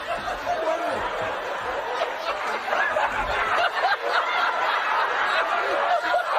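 Studio audience laughing, many voices at once.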